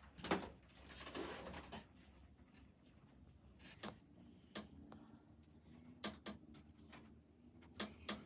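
Stylus tip tapping and scratching on an iPad's glass screen: a sharp tap near the start, a short scratchy stroke about a second in, then scattered light taps.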